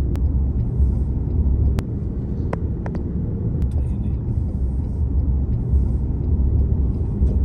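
Car driving on the road: a steady low rumble of engine and tyres, with a few scattered sharp clicks.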